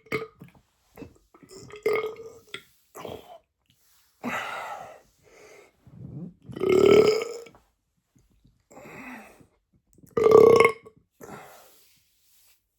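A man belching repeatedly, several separate belches with shorter, quieter sounds between them. The two loudest come a little past the middle and near the end.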